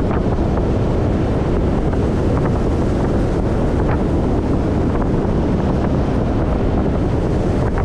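Steady wind rushing over the microphone of a speedboat under way at speed, with the outboard motor and the hull running on the water beneath it.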